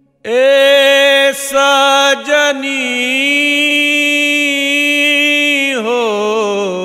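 Male voice singing a Bhojpuri folk song, holding long drawn-out notes with two brief breaks, then wavering and falling in pitch near the end.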